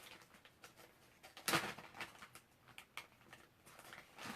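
Light clicks and taps of stamping supplies being handled on a craft table, with one short swish about a second and a half in.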